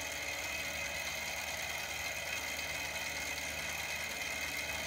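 Small tabletop Stirling engine, heated by a spirit-burner flame, running steadily: a continuous high-pitched mechanical whir.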